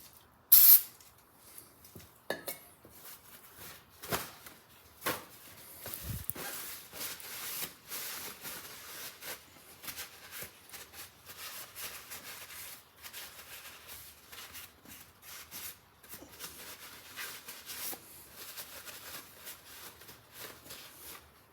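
Aerosol brake cleaner sprayed in two short, loud bursts less than a second apart, followed by quieter scattered clicks, knocks and rustling as parts are handled.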